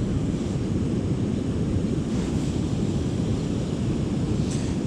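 Steady low rumble of wind buffeting the microphone over the rush of fast water below a river dam.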